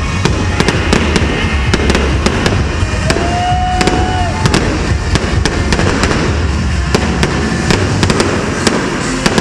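Aerial fireworks going off in rapid succession: a dense run of sharp bangs and crackles from the bursting shells.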